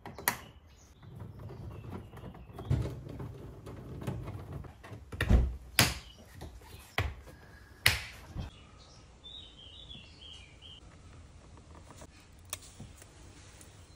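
Plastic retaining clips of a Citroën C4 Cactus front door trim panel snapping home as the panel is pressed onto the door: a series of sharp clicks and knocks in the first eight seconds, the loudest two about five and six seconds in. A lighter click comes near the end as the speaker grille cover is pushed on.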